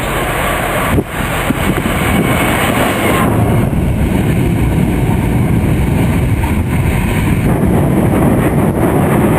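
Freight train passing close at speed: the locomotive goes by in the first few seconds, then a line of hopper wagons follows, rumbling and rushing steadily over the rails.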